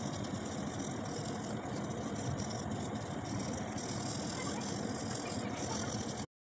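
Graphite pencil scratching on paper in steady shading strokes, a continuous rasping hiss that cuts off abruptly near the end.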